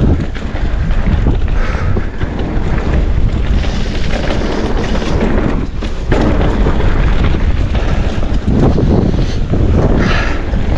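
Mountain bike ridden fast down a dirt trail, heard from a camera on the rider or bike: wind rushing over the microphone and a deep rumble from tyres and frame over the ground, with sudden louder jolts over bumps.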